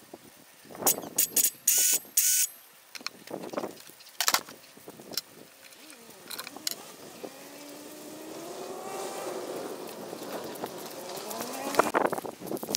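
Sharp plastic and metal clicks and knocks as a Parkside cordless circular saw is handled and its parts fitted; the saw is not running. In the second half a long, faint sound rises and then falls in pitch.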